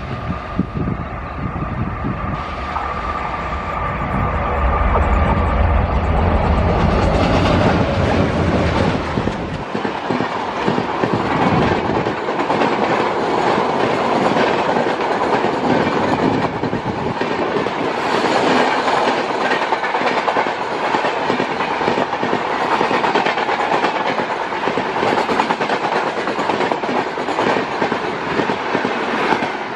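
Twin ALCO WDG3A diesel locomotives passing at speed, their turbocharged engines running loud with a deep rumble and a steady whine. After about nine seconds the engine sound gives way to the rush of the coaches going by, with the steady clickety-clack of their wheels over the rail joints.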